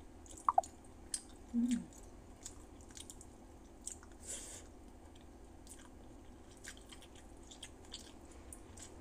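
A person chewing a mouthful of rice and pork sinigang eaten by hand, with many short wet clicks and smacks of the mouth. There are two brief hums of the voice in the first two seconds.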